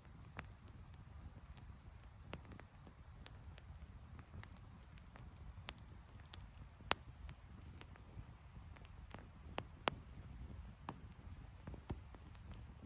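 Wood campfire crackling, with irregular sharp pops over a low steady rumble; the loudest pops come about seven and ten seconds in.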